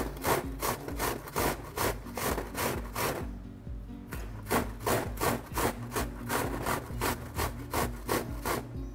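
An onion being grated on a stainless steel box grater: rhythmic rasping strokes, about two to three a second, with a short pause about three and a half seconds in.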